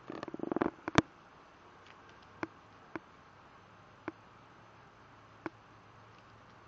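Cat grooming another cat's fur: a quick run of licking rasps and clicks in the first second, ending in one sharp click, then single short clicks every second or so.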